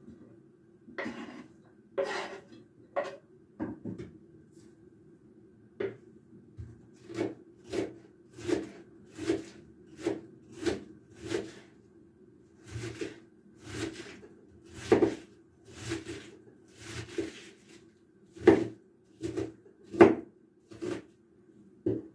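Kitchen knife slicing a head of cabbage into shreds on a wooden cutting board: a few scattered cuts, then a steady run of crisp knife strokes striking the board, about one every 0.7 s.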